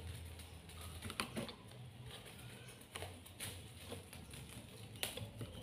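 Light, irregular taps and rustles as kittens bat at and bite a tangle of cables and a feather-toy stick on a tiled floor, over a low steady hum.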